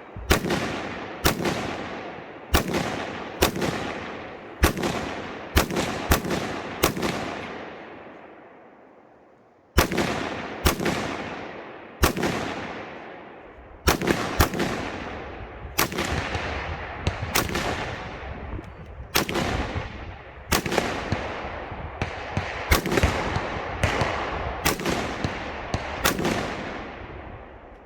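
Rifle shots fired at a steady pace during an IPSC stage, each followed by a long rolling echo of a second or more. The shooting breaks off for about three seconds a third of the way in, then resumes with some quicker double shots.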